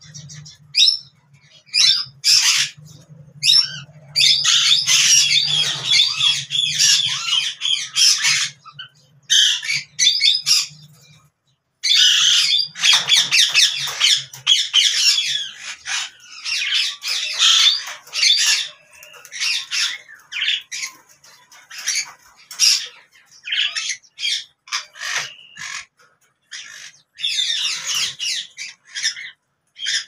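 A pair of caged Alexandrine parakeets squawking: many short, harsh calls in quick succession, running into long stretches of nearly continuous calling.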